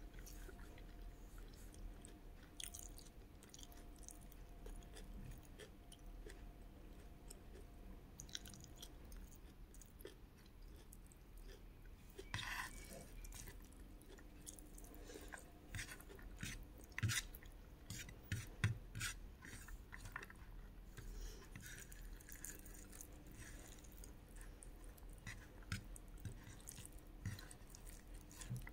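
Close-up chewing and lip smacking of a mouthful of chickpea curry and rice, faint, with a run of sharper smacks and clicks a little past the middle.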